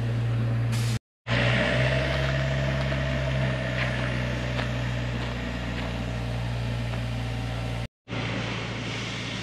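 A steady low rumbling drone with a faint hiss over it, cut off twice by brief drops to silence.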